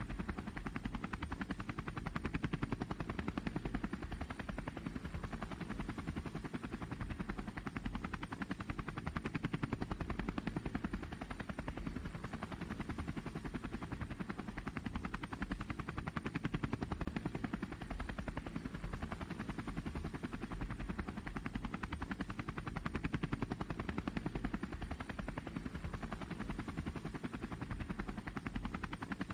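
DJI Phantom quadcopter's four electric motors and propellers buzzing steadily in flight, swelling and easing a little every few seconds as the throttle changes.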